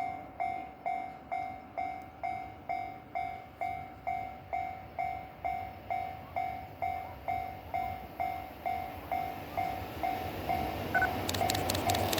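Japanese railway level-crossing warning bell ringing in a steady kan-kan rhythm, about two strikes a second. Over the last few seconds an approaching train's rumble rises and rapid clicking sets in as it reaches the crossing.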